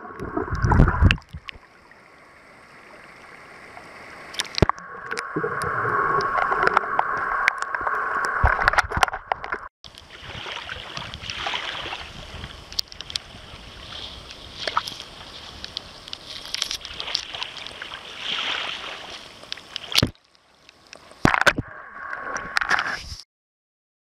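Muffled gurgling and sloshing of seawater around a camera held under water. After a cut about ten seconds in, small waves wash gently onto a sandy beach, swelling and easing. Near the end there is a brief burst of louder water noise, then the sound cuts off.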